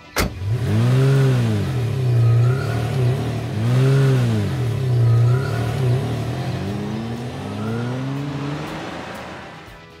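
Car engine sound effect revving up and down in pitch several times, then rising once more and fading away as the car drives off. There is a sharp click right at the start.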